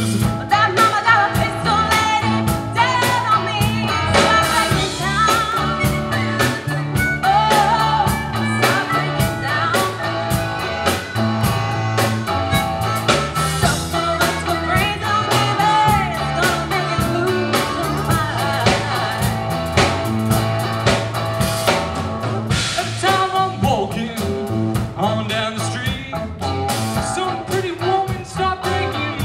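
Live blues-rock band playing, with a harmonica played into a vocal microphone and bending notes over electric guitar, bass guitar, keyboard and drum kit.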